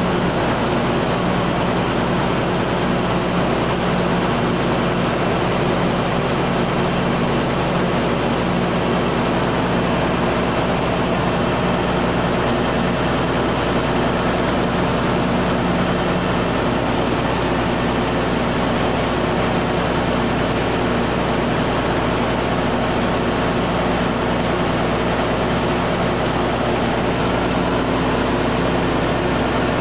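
Loud, steady drone of running machinery in a ship's engine room, with an unchanging low hum under it.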